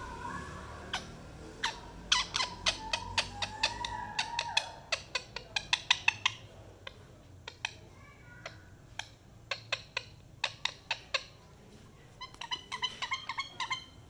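An Indian ringneck parakeet makes quick runs of sharp clicks and short chirps, ending in a fast burst of chattering chirps near the end.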